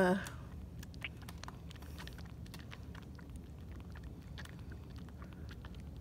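Kitten suckling from a nursing bottle: faint, irregular small wet clicks and smacks over a low, steady background hum.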